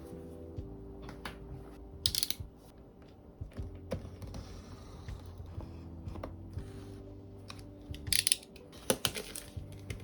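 Unboxing handling noises: scattered clicks and knocks, with louder rustling scrapes of packaging about two seconds in and again around eight and nine seconds in, over soft background music.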